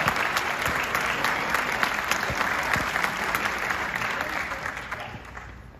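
Audience applauding with dense, steady clapping that fades away over the last second or so.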